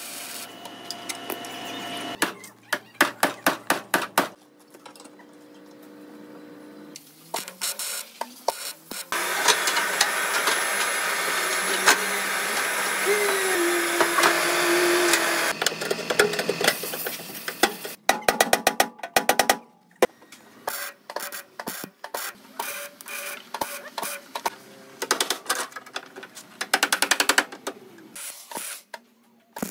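Car body repair work heard in short cuts. There are runs of rapid sharp clicks and crackling, with MIG welding at the start, and a stretch of steady noise lasting about seven seconds in the middle.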